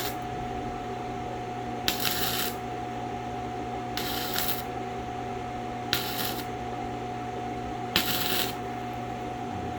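Stick-welding arc crackling in five short bursts of about half a second each, roughly every two seconds, as thick rod is tacked onto thin metal. A steady hum runs underneath.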